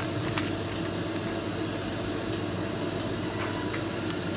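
Steady background hum, like a fan or an air conditioner, with a few faint light clicks.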